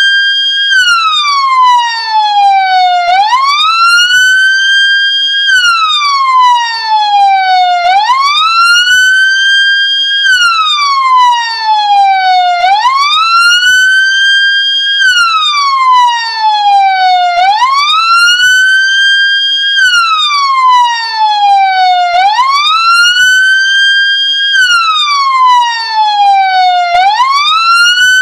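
Ambulance siren wailing: each cycle rises quickly in pitch, holds briefly at the top, then falls slowly, repeating about every two and a half seconds.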